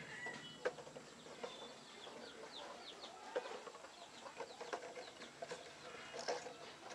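Soil being scooped with a spoon on a stick and dropped into a cut-down plastic bottle: faint scrapes and scattered light taps. A chicken clucks and small birds chirp in the background.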